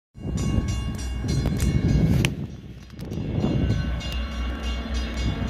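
Rumble of an approaching diesel commuter train led by two EMD locomotives, an F40PH and an F59PH, still some way off. The rumble eases for a moment about halfway through, and scattered sharp clicks sound over it.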